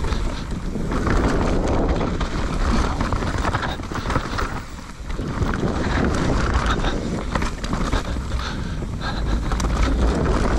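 Enduro motorcycle ridden off-road, its engine running under changing throttle with a short easing about halfway, mixed with heavy wind noise on the microphone.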